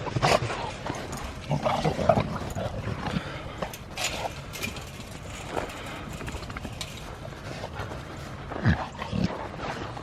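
A dog making short whining and yelping sounds, among scattered clicks and rustling; two brief falling whines near the end.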